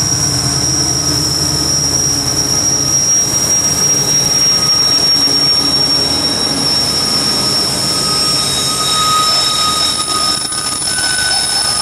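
Union Pacific GE ES44AC diesel-electric locomotives passing close by under heavy load, a loud steady engine rumble. A high-pitched whine runs throughout, and a second, lower squeal comes in about eight seconds in.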